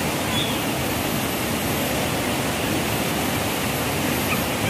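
Rain-swollen, muddy forest river rushing over boulders in rapids: a steady, even noise of white water.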